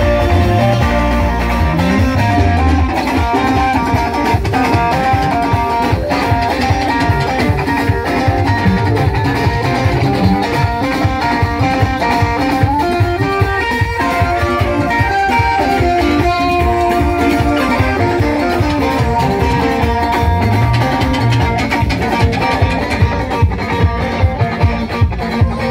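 Live band music led by electric guitars picking melodic lines over a bass line and a steady drum beat.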